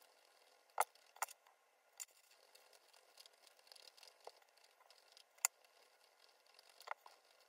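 Flannel cloth rubbing briskly over the toe of a polished leather shoe, a soft, steady brushing. A few sharp clicks sound over it, the loudest about a second in and about five and a half seconds in.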